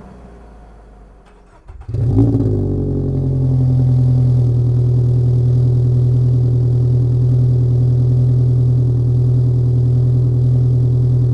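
Toyota GR86's 2.4-litre flat-four engine starting about two seconds in, flaring briefly, then settling into a steady idle through the aftermarket axle-back exhaust.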